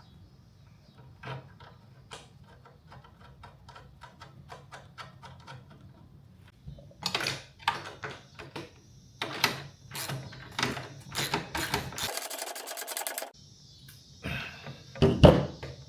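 Socket ratchet clicking as a nut is run down on a bolt: light, even clicks at first, then louder strokes from about seven seconds in, with a quick run of clicks near the end.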